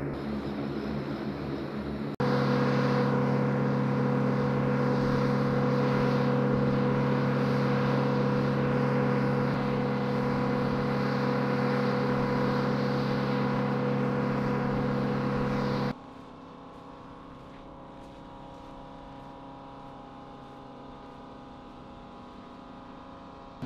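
Aircraft engines running at a steady drone with a fixed hum. The sound jumps much louder about two seconds in, then drops to a quieter level at about sixteen seconds.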